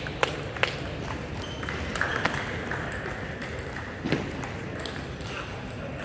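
Table tennis ball clicking off paddles and table: the last strokes of a rally about 0.4 s apart in the first second, then scattered clicks from other tables in a large hall.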